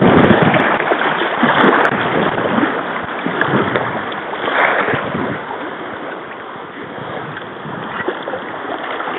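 Shallow river rapids rushing and splashing against a canoe, with scattered splashes from the paddle. The rushing is loudest at first and grows quieter over the first several seconds.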